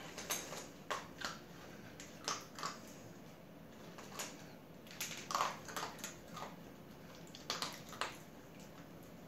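A schnauzer eating dry kibble from a bowl: irregular sharp crunches, a dozen or so, some in quick pairs and small clusters.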